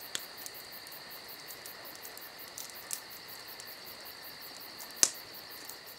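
Steady insect chorus of chirring crickets, with regular high pulses, a few faint clicks and one sharper click about five seconds in.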